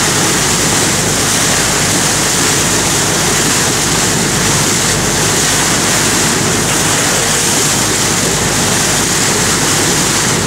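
Steady, loud rush of water along the hull of a moving boat as it pushes its bow wave.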